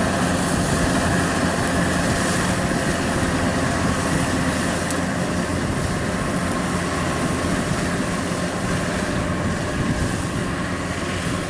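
Kubota DC-93 rice combine harvester running steadily, its diesel engine and threshing machinery making a constant drone with a few steady tones through it.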